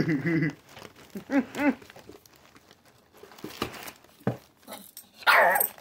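Crumpled brown packing paper crinkling and rustling in a cardboard box as cats paw and roll in it, with scattered light taps and a louder rustle near the end. Two short voice sounds come about a second and a half in.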